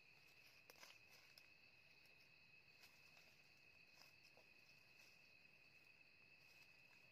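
Faint night-insect chorus: a steady, unbroken high trill, with a few soft clicks scattered through it.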